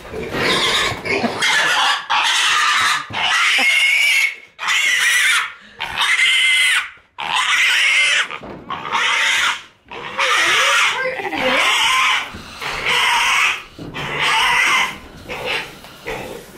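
Oxford Sandy and Black piglet squealing while it is picked up and carried: about a dozen loud, high-pitched squeals, each about a second long, one after another with short breaks.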